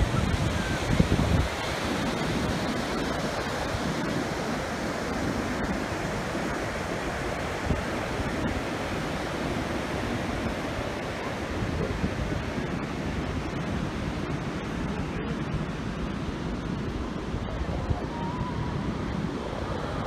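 Ocean surf washing onto a sandy beach in a steady noisy hiss, with wind buffeting the microphone, heaviest in the first second or so.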